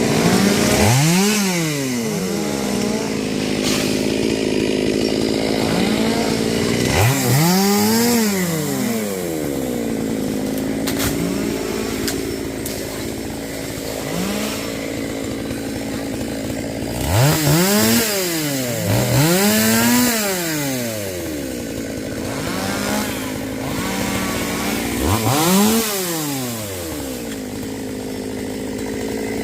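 Two-stroke chainsaw running at idle, its engine revved up and let fall back five times.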